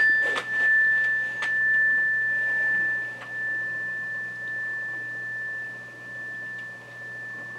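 Mindfulness bell ringing on after a single strike: one steady high tone that slowly fades, its loudness swelling and ebbing as it dies away.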